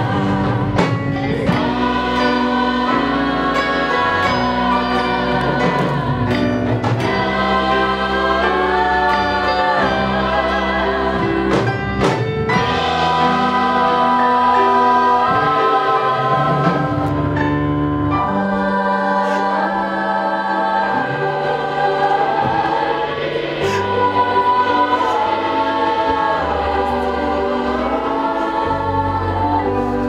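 Stage-musical number: several voices singing together over an accompaniment with held bass notes, at a steady, loud level.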